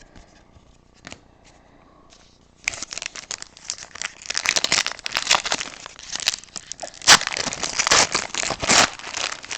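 Crinkling and tearing of a foil trading-card pack wrapper being ripped open and handled, a dense run of crackles that starts nearly three seconds in.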